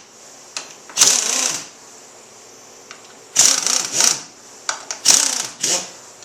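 Ratchet wrench clicking in about four short bursts of rapid ticks as the fork's triple-clamp pinch bolts are loosened.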